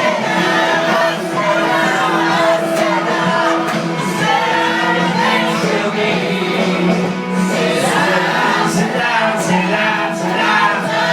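Music with a group of people singing along together, loud and steady throughout.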